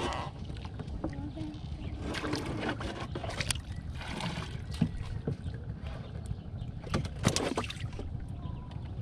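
Small wooden boat on open water: a steady low rumble of water around the hull, broken by a few sharp knocks and a splash of water being bailed out over the side with a plastic container.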